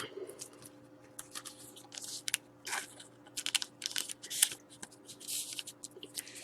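Trading cards being handled: soft, irregular rustling and scraping strokes with a few small clicks.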